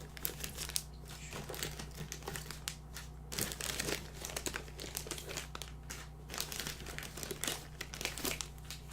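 Plastic trading-card pack wrappers crinkling as the packs are handled.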